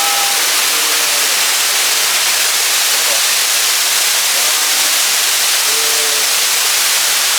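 Waterfall: a steady, loud rush of falling water. A few faint, brief pitched sounds rise over it near the start and again around the middle.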